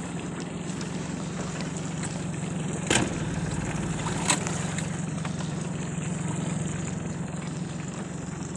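Yamaha 40 outboard motor idling steadily as the inflatable boat creeps along, with a sharp knock about three seconds in and another a little over a second later.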